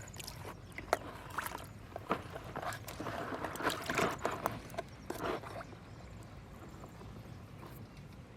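Water splashing and sloshing in a quick run of irregular splashes, busiest in the middle, then settling.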